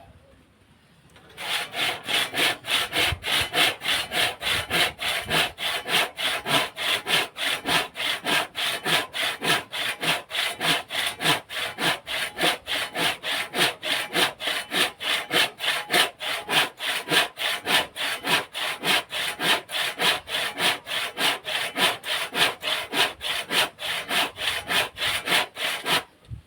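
Hand saw cutting through wood in steady back-and-forth strokes, about three a second, starting about a second in and stopping just before the end.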